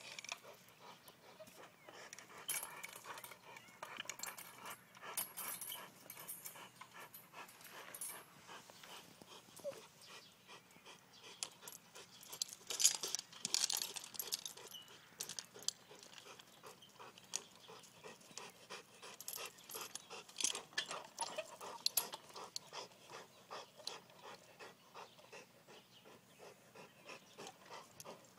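A Rottweiler panting as it bites and tugs at a plastic swing seat, with frequent clicks and rattles from the swing's metal chains. The rattling is loudest about halfway through.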